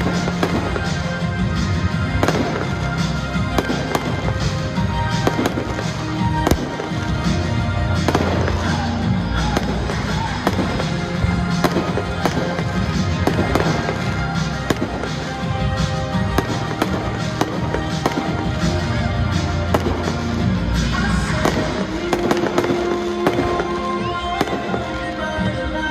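Fireworks going off in quick succession, many sharp bangs and crackles from rising comets and small aerial bursts, with music playing underneath.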